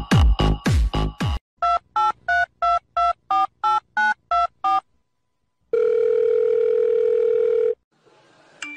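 A dance-music beat stops about a second in. It is followed by eleven quick telephone keypad tones, each a pair of pitches, as a phone number is dialled. After a short pause comes a steady two-second telephone line tone.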